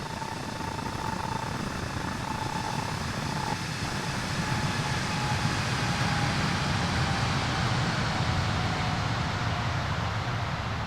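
Jet airliner engines at takeoff power. The noise grows louder to a peak about halfway through and then eases, with a thin whine slowly falling in pitch.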